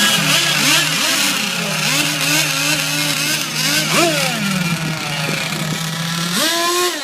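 Small engines of radio-controlled racing boats running: one holds a steady high idle while others are blipped in several short revs that rise and fall, the biggest one about six and a half seconds in.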